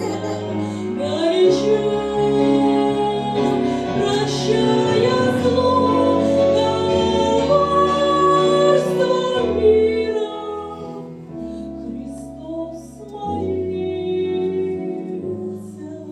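A song: a singing voice holding long, wavering notes over instrumental accompaniment with a bass line that changes note every second or two, softer in the last few seconds.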